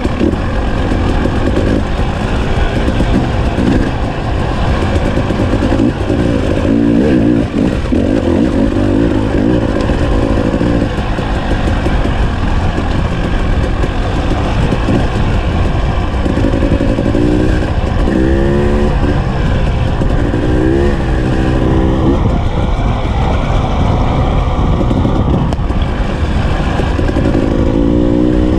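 KTM 300 XC-W TPI two-stroke enduro engine running under the rider on a trail, its revs rising and falling in quick sweeps as the throttle is worked, most plainly in the second half. A steady low rumble runs underneath.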